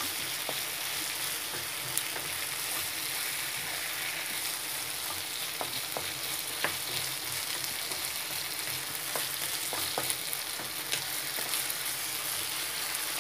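Chicken and onions in soy sauce sizzling steadily in a frying pan while a wooden spatula stirs them, with scattered light clicks and scrapes of the spatula against the pan.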